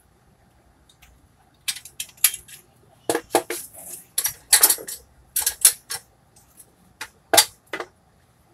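Metal clanking and clinking: a run of sharp knocks and rattles, several in quick succession, loudest in the middle.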